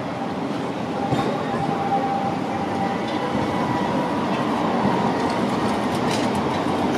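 Light-rail tram passing close by, its wheels rolling on the track with a steady rumble and a faint whine, getting louder about a second in, with a couple of light clicks.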